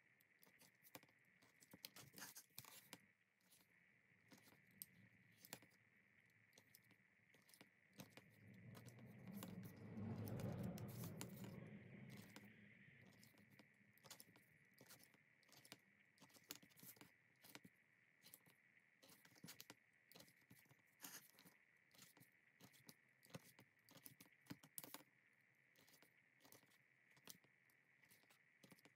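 Faint, scattered clicks, taps and scrapes of leatherworking handwork with tools and leather, over a steady faint high hum. About ten seconds in, a low rumble swells for a couple of seconds and fades.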